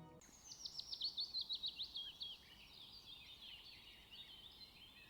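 Songbirds singing: a quick run of high, falling chirps for about two seconds, then quieter, varied twittering.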